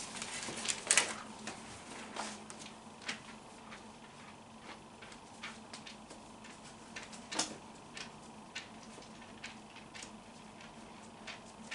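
Thin Bible pages being leafed through by hand: irregular soft flicks and rustles of paper.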